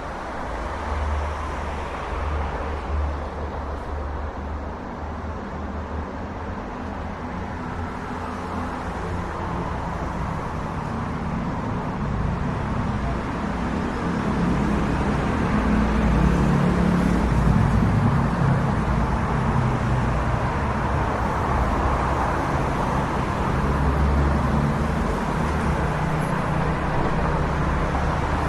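Road traffic passing on a street: a steady rumble of car engines and tyres that grows louder about halfway through as heavier traffic goes by.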